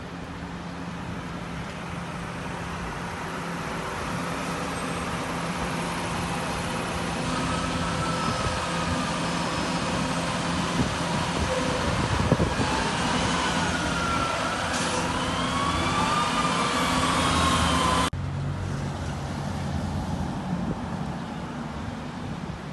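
Engines running and traffic noise, with an emergency vehicle's siren wailing up and down from about a third of the way in and growing louder as it approaches, until it cuts off abruptly about three-quarters of the way through; engine and traffic noise carry on after.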